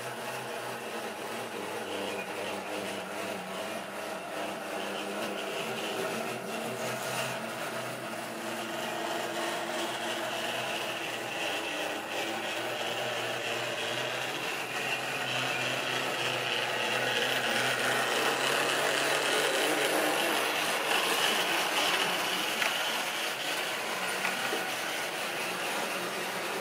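Model railway locomotive running along the track with a train of wagons: a steady motor whir and the running of wheels on rails. It grows louder as the train comes closer and eases off near the end.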